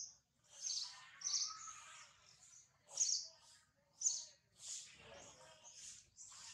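Birds chirping: a string of short, high calls, one or two a second.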